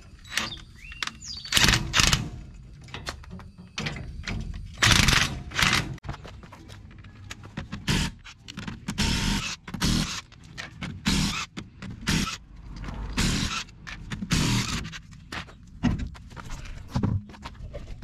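A dozen or so short bursts of a cordless impact wrench spinning and rattling lug nuts onto a truck wheel, among knocks and scrapes of tools and parts.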